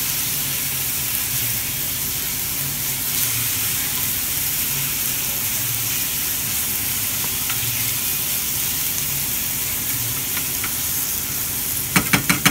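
Beef strips and vegetables sizzling steadily in a hot stainless frying pan as they are stirred with a wooden spoon. Near the end comes a quick run of about eight sharp knocks of the spoon against the pan.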